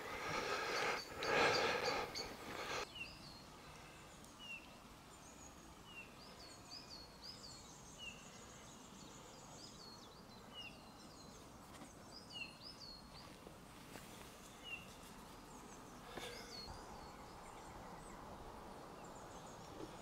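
Small birds calling: short high chirps repeated roughly once a second, with higher hooked notes in among them, over a quiet outdoor background. A few seconds of rustling noise come first.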